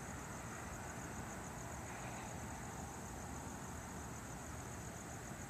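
Faint, steady hum of distant road traffic, with a continuous high, pulsing cricket trill over it.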